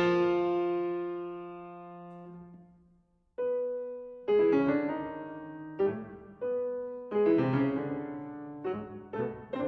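Slow piano music. A held chord dies away to a moment of silence about three seconds in. Then notes and chords resume, coming quicker near the end.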